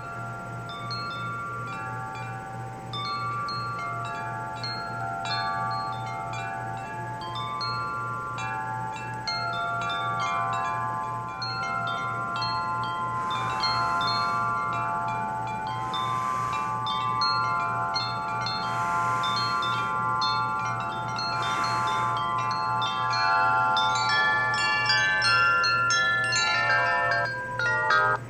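Simulated wind chimes from an iPhone app: metal tubes struck again and again at random, each note ringing on and overlapping the others. Four short gusts of wind noise sweep through in the middle, and the strikes come thicker and louder near the end, over a steady low hum.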